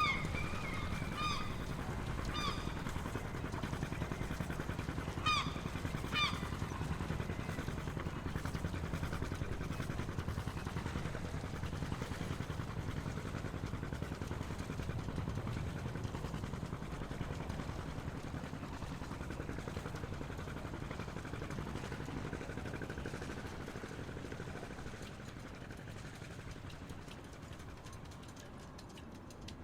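Small-harbour ambience: a steady low rumble, with a run of short honking bird calls in the first several seconds. The rumble fades toward the end.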